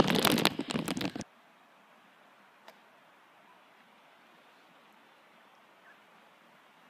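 Loud rustling and handling noise from the plastic bags wrapped around the recording iPad, cut off abruptly about a second in. The rest is near silence, a faint hiss with a couple of soft ticks.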